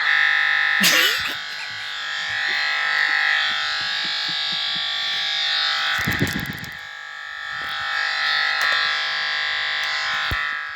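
Harsh, continuous electronic buzz from a computer's audio stuck looping during a blue-screen crash. It cuts in suddenly and holds steady, with short glitchy breaks about a second in and about six seconds in.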